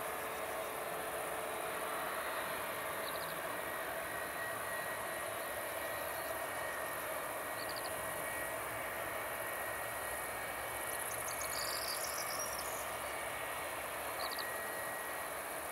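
A Boeing 757-300's jet engines at taxi power, heard from a distance as a steady rush with a faint whine. Insects keep up a constant high chirping in the grass, with a few short chirps every few seconds and a cluster of them about eleven seconds in.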